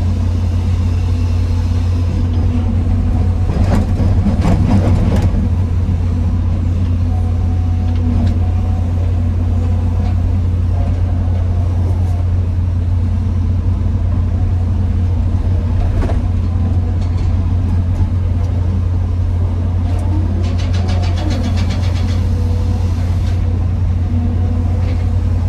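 Excavator's diesel engine running with a steady low drone, with bursts of clattering and clanking from the machine working rock, about four seconds in and again about twenty seconds in.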